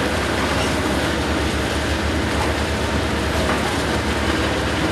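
Heavy excavator running steadily under load as it works into the concrete rubble of a collapsed building, its diesel engine rumbling with a pulsing beat and a few faint knocks of debris.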